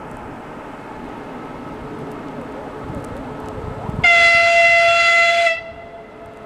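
EP2K diesel passenger locomotive sounding a single high-pitched horn blast about four seconds in. The blast lasts about a second and a half and cuts off sharply, over the steady rumble of the approaching train.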